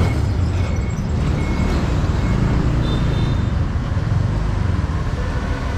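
Motor scooter running along a city street with road and traffic noise, a steady low rumble that eases a little toward the end.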